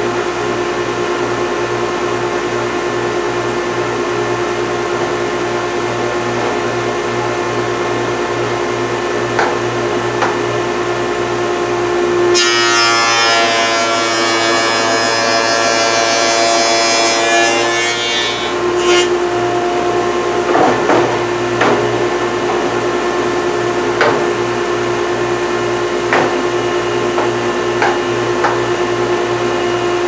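Sticking machine running with a steady hum. About twelve seconds in, a wood rail is fed through the cutter for about six seconds, a louder cutting sound as the stile-and-rail profile is cut. Scattered light knocks of wood being handled follow.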